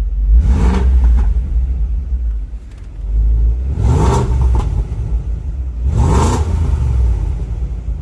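BMW X5 4.6is's 4.6-litre M62 V8 running with a deep rumble and revved three times, the pitch rising and falling with each rev, about half a second, four and six seconds in. The engine has just had a new timing chain tensioner fitted, and to its owner it now sounds real different and very aggressive, for reasons he can't explain.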